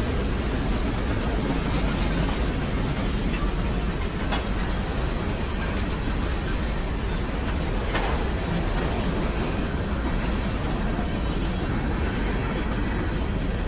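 Freight train rolling past: a steady rumble and rush of the cars, with a couple of sharp clicks from the wheels, about four and eight seconds in.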